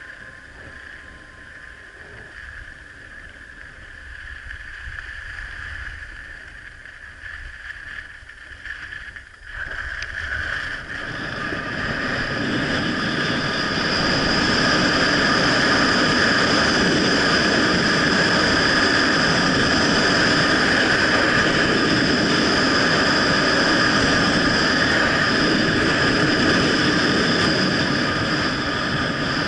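Wind rushing over a Sony HDR-AS15 action camera's microphone as a skier runs fast down a groomed piste, mixed with skis running on the snow. It is fairly quiet at first, then swells to a loud, steady rush from about ten seconds in as the speed climbs toward 68 km/h.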